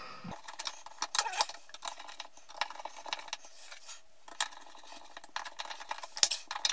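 Flathead screwdriver working the screws of a plastic switch cover plate: irregular small metallic clicks and scrapes as the plate is screwed down.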